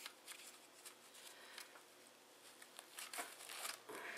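Faint crinkling and rustling of tissue paper and a thin plastic bag as a small wristwatch is unwrapped by hand, with scattered soft crackles that get a little louder near the end.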